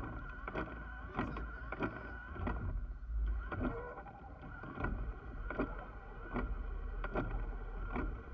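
Water sloshing and lapping around a half-submerged Humvee, with irregular splashes about two to three a second over a low steady rumble.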